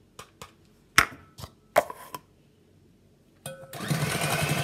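Several sharp knocks of a plastic measuring cup tapped against the rim of a stainless steel bowl, the loudest about a second in. About three and a half seconds in, a stand mixer with a balloon whisk starts up and runs steadily with a low hum.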